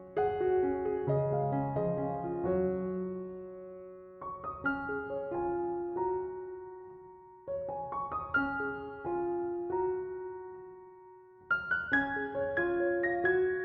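Soft background piano music: gentle phrases of notes and chords, each note struck and left to fade, with a new phrase starting every few seconds.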